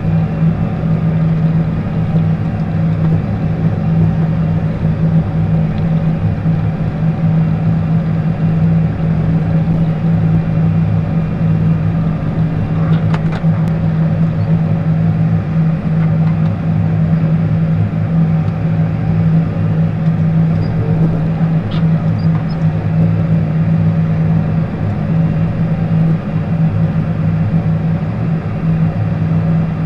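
John Deere tractor's diesel engine running steadily as it plows snow, heard from inside the closed cab. A couple of faint clicks come about halfway through.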